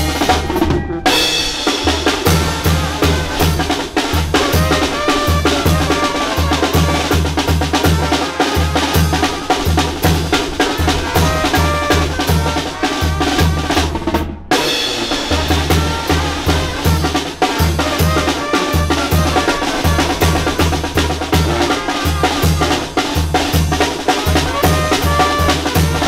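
Tamborazo band playing: tambora bass drum, snare and cymbals keep a driving beat under a tuba bass line and horns carrying the melody. The music drops out briefly twice, about a second in and around the middle.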